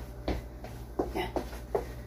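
Rhythmic footfalls of someone exercising in place, short thuds on the floor about two and a half times a second.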